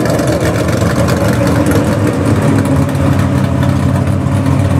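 Small-block high-output class pulling truck's V8 engine running loud at steady high revs while pulling the sled.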